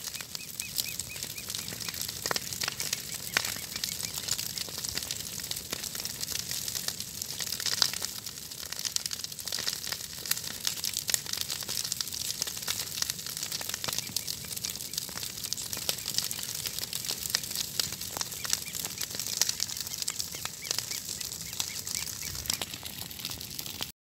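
Fire burning through dry grass and brush: a dense, steady crackling of burning vegetation with sharper pops scattered through it.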